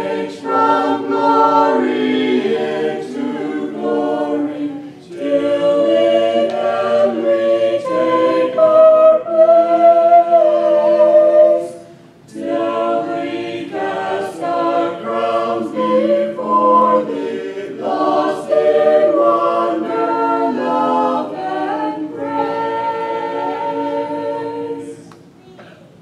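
A small mixed group of men and women singing a cappella in parts into microphones, with a short break between phrases about halfway through; the song ends about a second before the close.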